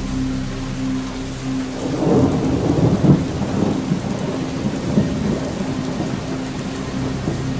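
Rain, with a roll of thunder building about two seconds in and dying away by about five and a half seconds, over a steady low hum.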